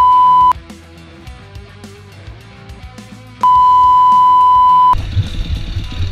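Censor bleeps: a loud, steady, single-pitched beep that cuts off about half a second in, and a second, longer one of about a second and a half starting around three and a half seconds in. Quieter music sits between them, and dirt bike engine noise comes back about five seconds in.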